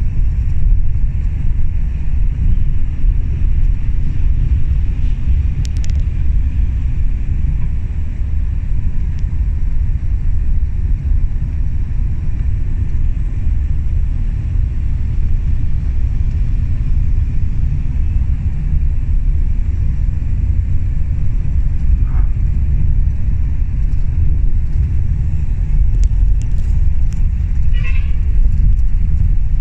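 Steady low rumble of a bus's engine and tyre noise heard from inside the passenger cabin while the bus is moving.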